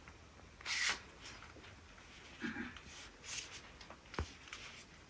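Faint handling noises from a plastic phone gimbal being turned over in the hands while trying to pull out its extension stick: a short rustle about a second in, a few soft knocks, and one sharp click near the end.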